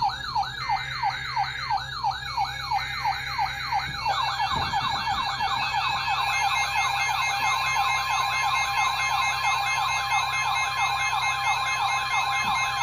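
Electronic siren yelping, a quick falling sweep about three times a second. About four seconds in, a second yelping siren joins and overlaps the first, and later a steady tone sounds with them.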